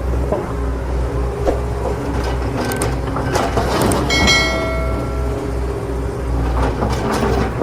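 Small electric motors and gearboxes of RC model construction machines running with a steady whir, with scattered knocks and clatter of rock being dug and moved, and a short ringing metallic clink about four seconds in.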